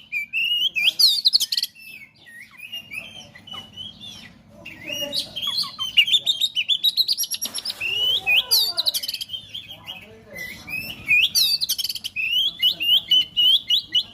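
Oriental magpie-robin (kacer) singing a fast, varied song of whistled notes, sweeps and chattering phrases, in repeated bursts with short gaps.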